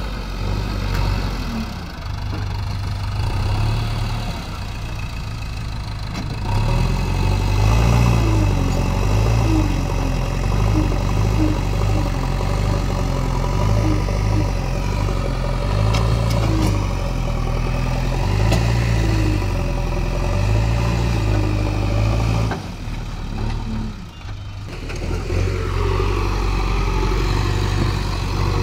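JCB 3DX backhoe loader's diesel engine running under load while the front loader bucket works soil, its note rising and falling in repeated surges. The level drops briefly about three quarters of the way through, then picks up again.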